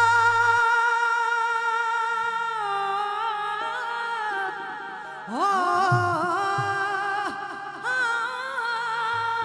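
A woman singing a devotional song into a microphone, holding long notes with a slight waver. Partway through she drops to a softer passage, then swoops up into a new held phrase about five seconds in.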